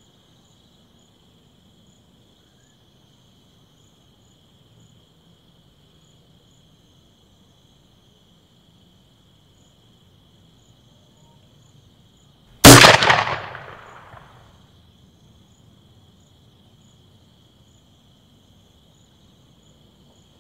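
A single gunshot fired without a silencer: one sharp crack about twelve seconds in that echoes away over a second or two. Behind it, a steady high insect chirring.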